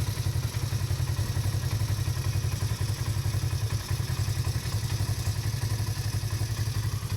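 Polaris RZR XP 1000's 999 cc parallel-twin engine idling steadily on a test start, running without stalling now that its TMAP sensor connector has been replaced.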